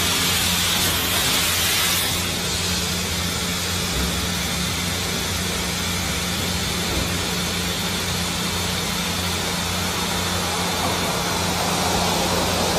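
Automatic car wash running: a steady hissing rush of its jets with a low steady hum beneath. The hiss is brighter for the first two seconds.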